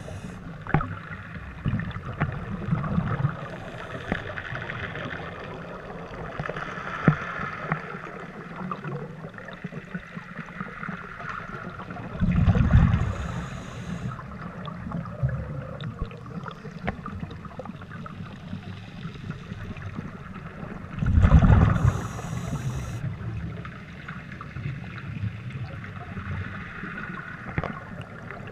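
Scuba diver's regulator breathing heard underwater: two loud rushes of exhaled bubbles, about twelve and twenty-one seconds in, over a steady low underwater wash with scattered small clicks.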